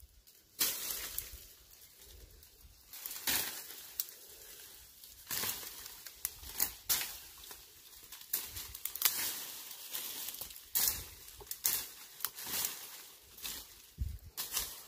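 Leaves, twigs and dry leaf litter rustling and brushing in many irregular bursts, with sharp snaps, as a person pushes on foot through dense undergrowth.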